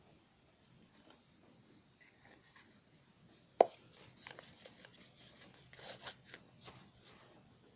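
Chopsticks knocking and scraping against a bowl while stirring the slime mixture: one sharp knock about three and a half seconds in, then a run of light clicks and scrapes.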